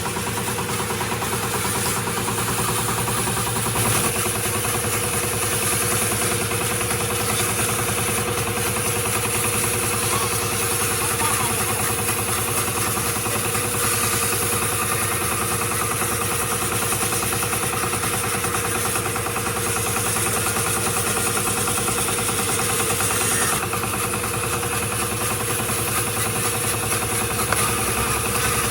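A workshop machine motor runs steadily, a constant hum with several steady tones and a hiss above them. Its high end shifts slightly about four seconds in and again near the end.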